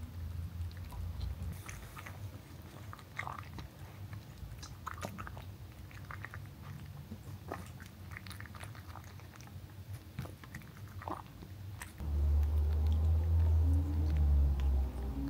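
Cat eating from a stainless steel bowl, chewing and crunching dry kibble mixed with wet food in irregular bites. About twelve seconds in the chewing gives way to background music.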